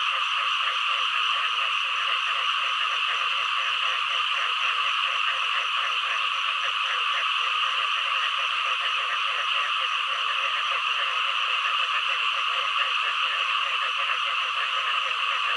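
A dense chorus of many frogs calling together, a steady, unbroken mass of rapid pulsed croaks.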